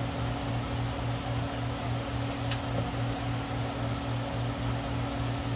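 A steady hum pulsing about four times a second, like a mechanical fan running, with one short tick about halfway through. Under it is the hiss of hot engine oil streaming from the opened drain hole of the oil pan.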